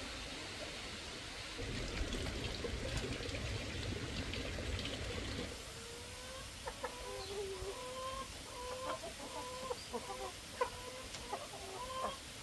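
Chickens clucking, a run of short, even calls through the second half. Before that, for a few seconds, there is a noisy rustling with small clicks.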